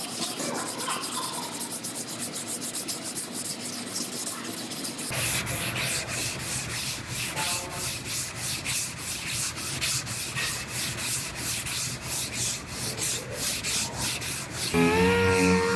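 Hand sanding of body filler on a car door panel: regular back-and-forth strokes of sandpaper, about three a second. Near the end a power tool starts with a steady whine.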